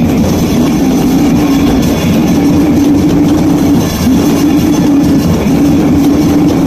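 Raw, lo-fi goregrind session: heavily distorted guitar riffing over drums, blurred into one dense, noisy wall of sound. The riff holds a low droning note that breaks off and restarts about every one and a half seconds.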